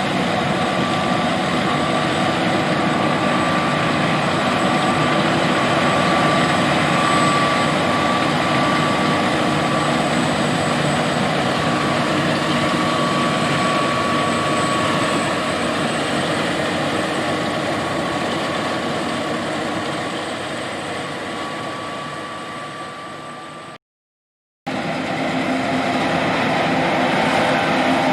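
John Deere S780 combine harvester running steadily under load, a dense machine noise with a steady high whine. It fades a little past twenty seconds in, drops out completely for under a second, then comes back with a somewhat different tone.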